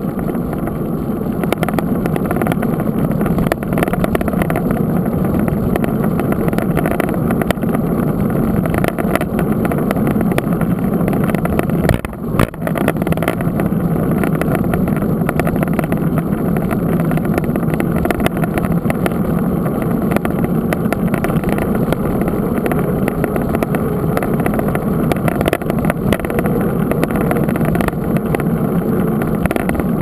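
Steady rush of wind over a bike-mounted camera's microphone, mixed with the road noise of a mountain bike's knobby tyre rolling on asphalt. There is a brief dip about twelve seconds in.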